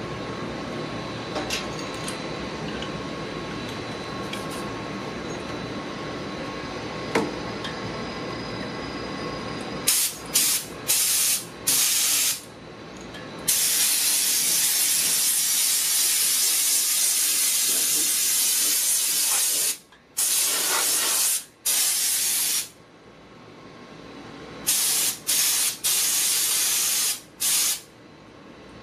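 Air-powered engine-cleaning gun spraying water drawn up its suction hose, giving loud hissing blasts of compressed air and mist. About ten seconds in come a few short trigger pulls, then one long spray of about six seconds, then more short bursts near the end. Before the first blast there is only a steady background hum with faint tones.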